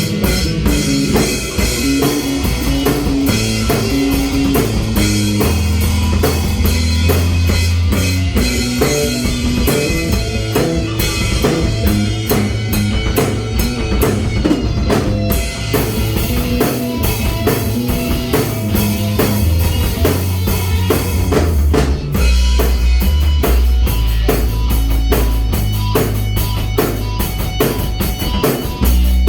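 A rock band playing at full volume: drum kit with bass drum and snare or rim hits, bass guitar and guitar. About two-thirds of the way through there is a brief break, and the drumming then comes back denser.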